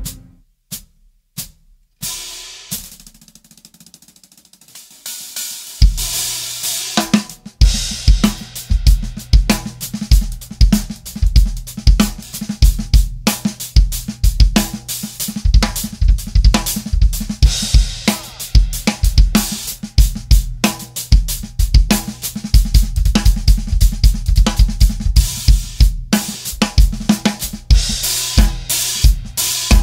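Drum kit played through an oversized hi-hat setup: a few single strokes and a ringing cymbal wash at first, then from about six seconds a steady groove of bass drum, snare and big, washy hi-hats.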